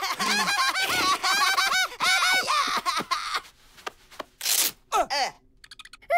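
Cartoon laughter: a girl and a man laughing in quick, high-pitched bursts. About four and a half seconds in comes a short tearing noise as a fake beard is pulled off, followed by a brief falling sound.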